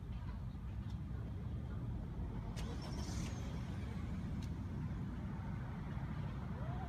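Road traffic on the street beside the track: a steady low rumble of passing cars, with a few faint ticks.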